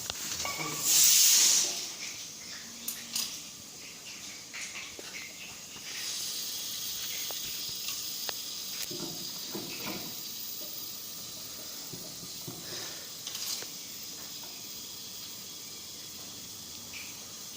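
Pressurised gas hissing during refrigerator repair work: a short loud burst about a second in, then a steady high hiss from about six seconds on, with scattered small knocks and clicks.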